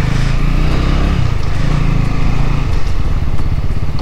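KTM Duke 200's single-cylinder engine under way, its revs climbing and then dropping about a second in.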